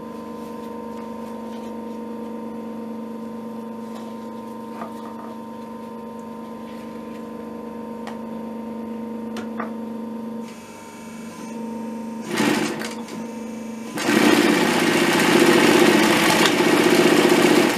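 Pfaff 335 industrial cylinder-bed sewing machine: its motor hums steadily at first with a few light clicks, then the machine stitches through leather, a short run about 12 seconds in and a continuous fast run from about 14 seconds to the end, the loudest part.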